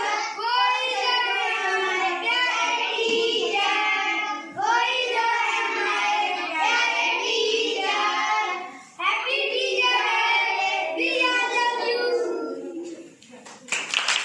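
A group of young children singing a song together in phrases with short breaks between them. Near the end the singing stops and clapping starts.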